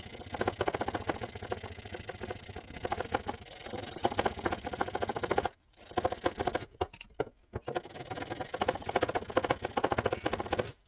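240-grit abrasive wetted with WD-40 on a file, rubbed back and forth in quick strokes over a flat on a steel rifle barrel to give it a finer finish. The scratching stops briefly twice a little past halfway.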